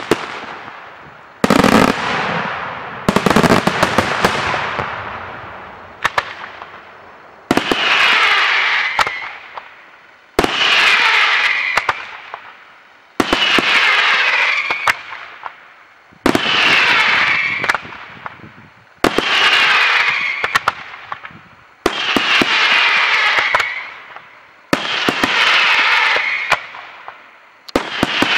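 Daytime fireworks: a dense cluster of bangs in the first few seconds, then a steady sequence of aerial shells going off about every three seconds. Each shell gives a sudden loud burst that trails off over a couple of seconds.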